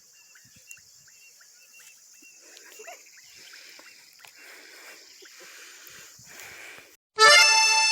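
Faint dusk wildlife ambience: scattered short chirps and a steady high insect hum. About seven seconds in the sound cuts out briefly and accordion music begins abruptly, much louder.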